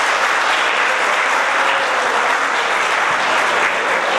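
A roomful of guests applauding, steady sustained clapping.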